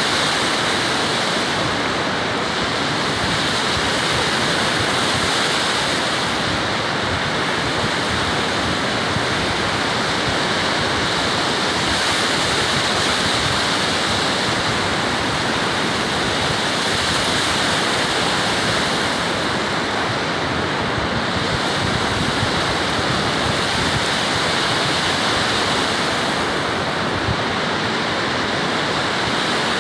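Ocean surf: a steady, loud wash of breaking waves, its hiss swelling and easing slowly.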